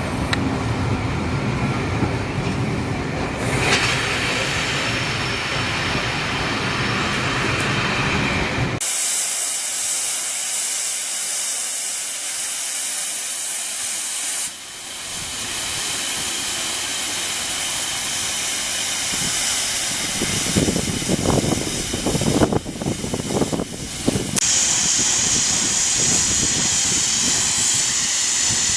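Steam locomotive LNER Peppercorn A1 60163 Tornado hissing steam, at first over a heavy low rumble. After about nine seconds the sound switches abruptly to a high, bright hiss, which shifts suddenly twice more, with a few brief knocks near the middle.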